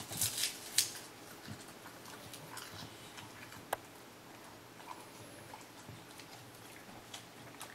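English bulldog licking and chewing a wafer ice cream cone: wet smacking and crunching, loudest in the first second, then quieter licks and smacks with one sharp click about halfway through.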